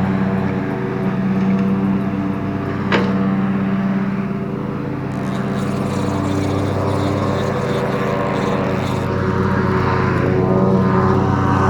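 Tractor engine running steadily with a low drone, plus one sharp click about three seconds in.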